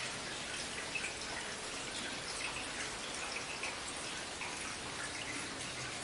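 Steady rain falling, with many close drops pattering and dripping on hard surfaces.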